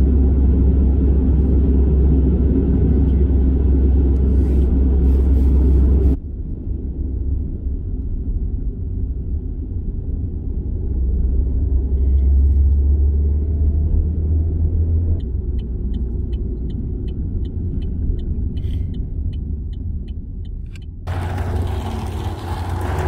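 A car driving, heard as a steady low road rumble. In the second half there is a run of light, evenly spaced ticks, about two a second, lasting several seconds.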